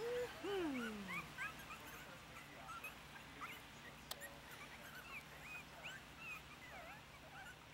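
Four-week-old Yorkshire terrier puppies squeaking and whimpering as they eat, with many short high squeaks rising and falling in pitch. One louder, lower whine slides down in pitch in the first second, and a single sharp click comes about four seconds in.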